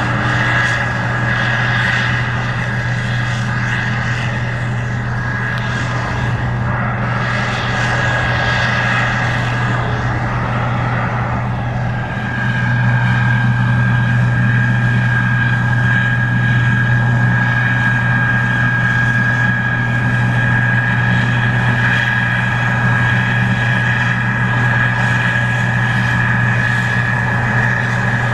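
Case IH 2388 Axial-Flow combine harvesting corn: a steady engine drone under a high, steady whine, growing louder about twelve seconds in.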